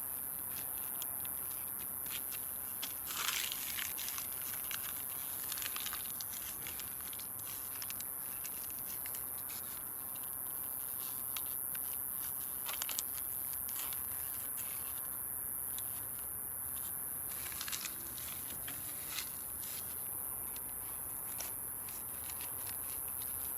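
Wood campfire crackling, with irregular sharp pops and snaps and louder bursts of crackle about three seconds in and again near eighteen seconds.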